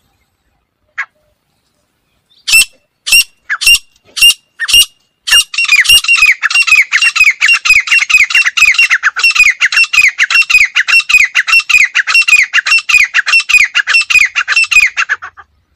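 Female gray francolin calling: a few loud, sharp notes about half a second apart, then a fast, even run of downward-slurred calls, about four a second, that stops suddenly near the end.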